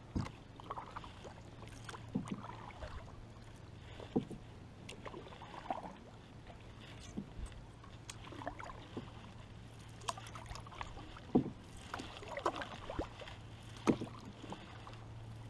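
Canoe paddles dipping and pulling through calm river water, with small splashes and drips. A few short, sharp knocks stand out, the loudest about four, eleven and fourteen seconds in.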